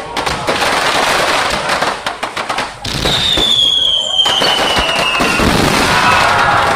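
Aerial fireworks bursting overhead in a dense, continuous crackle of rapid pops. About three seconds in, a high whistle slides slowly down in pitch for around two seconds.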